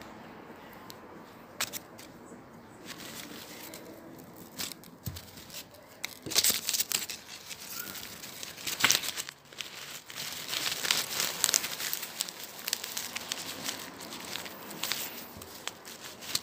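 Thin packaging crinkling and tearing as it is handled, in irregular bursts of crackle that get busier from about six seconds in.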